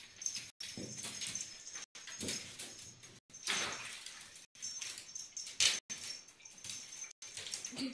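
Bathtub water sloshing and splashing in bursts as a ferret swims, with a puppy pawing at the tub side and making small dog sounds.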